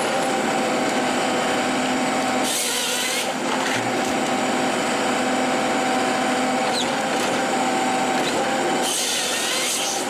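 A forestry harvester running steadily while its head feeds a felled tree trunk through its rollers and delimbing knives. Twice, briefly, about two and a half seconds in and again near the end, the head's chainsaw bar cuts through the log.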